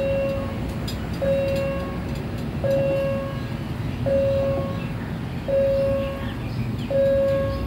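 Level-crossing warning bell sounding one short ringing tone about every second and a half, six times, over the low rumble of an approaching diesel railcar.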